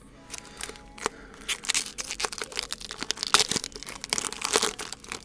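Wrapper of a 2010 Topps baseball card pack being torn open and crinkled: an irregular run of crackles and tears.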